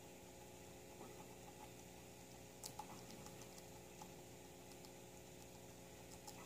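Faint, scattered crisp clicks of a guinea pig chewing leafy greens, a few sharper crunches about a third of the way in and near the end, over a steady low hum.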